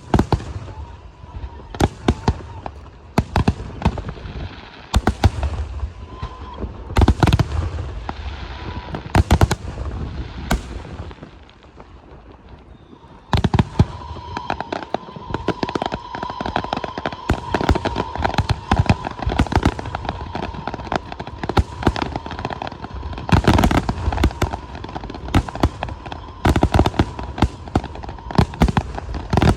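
Aerial fireworks display: shells bursting with loud bangs amid rapid crackling. There is a short lull about halfway through, then a dense run of crackle and bangs.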